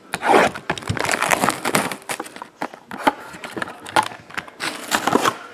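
Plastic shrink wrap being slit and torn off a sealed trading card box, crinkling and crackling in quick irregular snaps.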